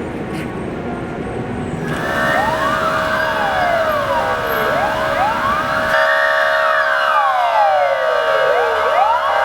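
A low rumble, then about two seconds in several fire engine sirens start wailing together: overlapping slow wails, each rising and falling over a few seconds, over steady tones.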